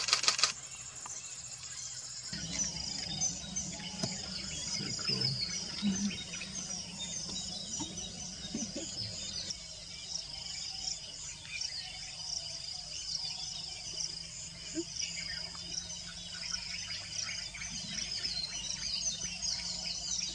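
Wild birds chirping in a dense, busy chorus with insects, over a low steady hum. A short burst of sharp clicks sounds right at the start.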